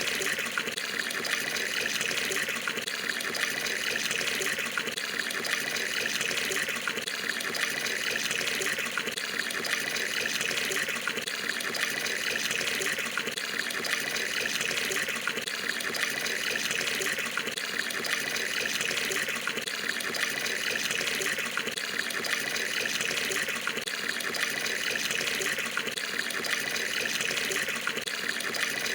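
Tap water pouring steadily into an Indonesian bathroom water tub (bak mandi), a continuous splashing gush as the tub fills.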